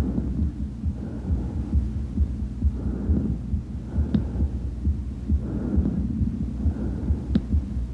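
Bronchial breath sounds heard through a stethoscope: hollow, tubular breathing that swells and fades with each in- and out-breath, over a background of low thuds. Heard over the chest away from the large airways, such breathing is the sign of a consolidated area of lung, as in pneumonia or atelectasis.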